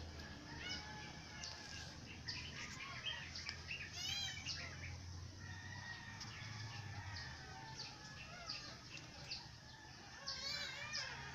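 Newborn puppy squeaking and whimpering in thin, high cries again and again as its mother licks it, with a louder squealing cry about four seconds in and another near the end.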